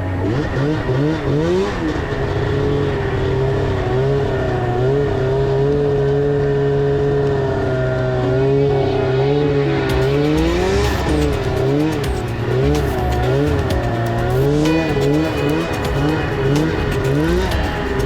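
Snowmobile engine running under way, its pitch rising and falling continually with the throttle.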